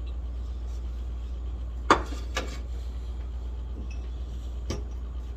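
Eating noises over a plate: a few sharp clicks and knocks, the loudest about two seconds in, over a steady low hum.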